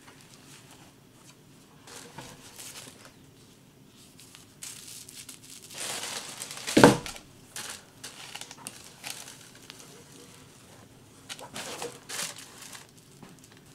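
Handling noise as a handbag is unwrapped: a cloth dust bag rustling and plastic wrap on the strap crinkling, in scattered bursts. There is one louder sharp bump about seven seconds in.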